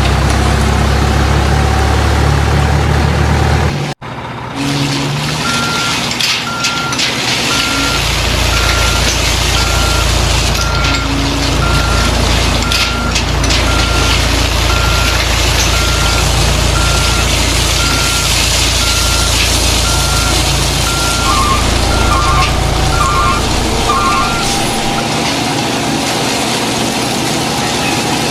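RC dump truck's sound unit playing a reversing beeper, evenly repeated about one and a half beeps a second over a low engine rumble. Near the end a second, lower double beep joins, then both beeping and rumble stop. Before the beeping, a loud low hum cuts off abruptly.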